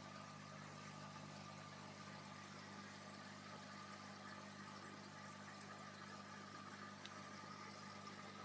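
Aquarium air pump running: a faint, steady hum with a light hiss of bubbling from the air line in the tank.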